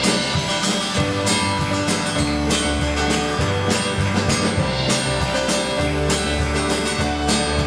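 Live church worship band playing an instrumental passage with a steady beat and guitar, with no singing.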